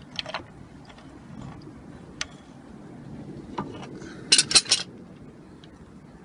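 Scattered light clicks, then a quick run of about four sharp clicks some four and a half seconds in, from handling the water pump pliers and the oil filter housing cap as the cap is screwed back on by hand.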